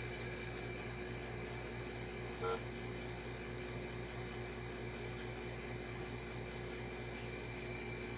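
Steady low electrical hum and hiss of room tone, with one brief pitched beep about two and a half seconds in.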